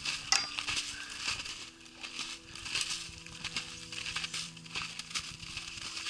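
Footsteps crunching through shallow snow and dry twigs, a quick irregular run of crisp crunches, with one sharper snap near the start.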